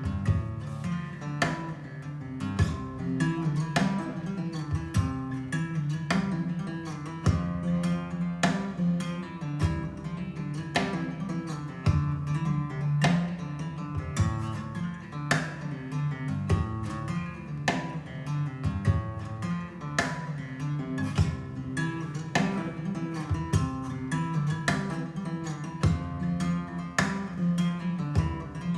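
Recorded acoustic guitar music with strummed chords in a flamenco style, played back over a hi-fi system's Estelon loudspeakers, with a sharp chord stroke about once a second.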